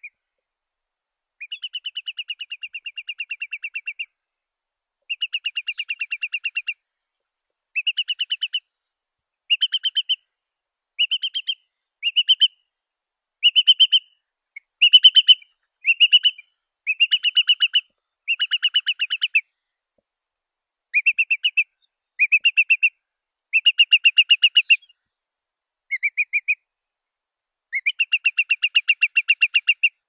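Curlew calling: about fifteen bouts of fast trilled notes, each lasting from under a second to a few seconds, with short silent gaps between them. The calls are loudest and most clipped about halfway through.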